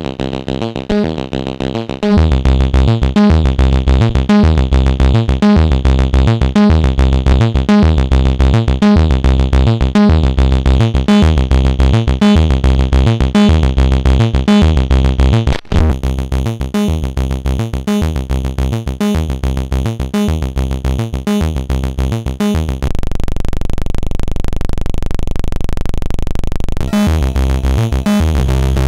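Plankton Electronics Ants! synthesizer played through the SPICE saturation/distortion unit: a repeating pulsing note pattern with heavy bass, which gets louder about two seconds in and cuts out for an instant about halfway. Near the end the pattern gives way to a steady held drone for a few seconds, then comes back.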